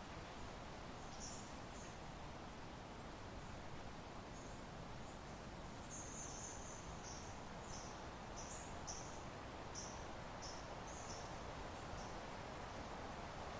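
Steady soft wind ambience. Over it, short high chirps come once about a second in and then as a run, roughly two a second, from about six seconds in to near the end.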